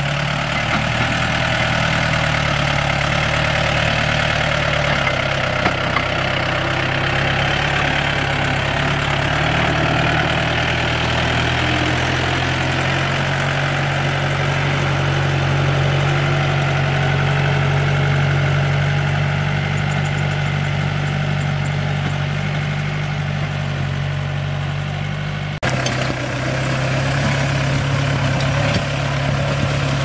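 Tractor's diesel engine running steadily, with a sudden break about three-quarters of the way through, after which it runs on.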